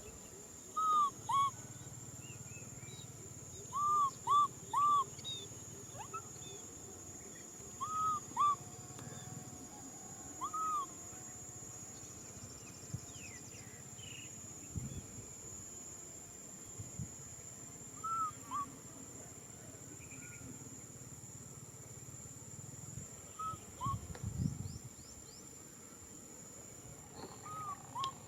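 Baby macaque crying: short, high, rising-and-falling coo calls, singly or in quick runs of two or three, with long pauses between.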